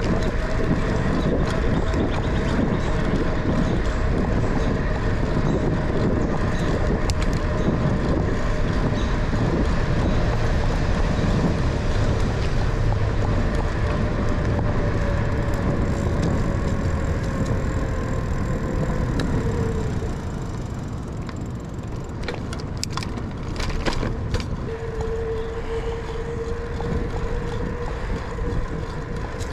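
Bicycle rolling along an asphalt trail: steady wind and tyre rumble, with a thin whine that slowly drifts lower in pitch, fades about two-thirds of the way through, then comes back. A few sharp clicks a little later.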